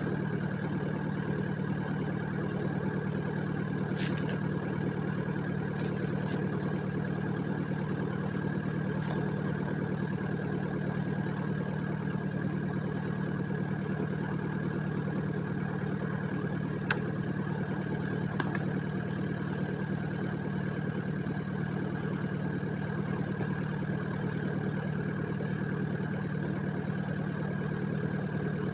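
Excavator's diesel engine idling steadily, with a few faint clicks.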